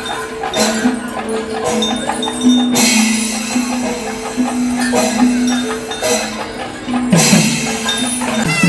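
Traditional festival music: a melody of long held notes that step in pitch, over jingling cymbals and percussion.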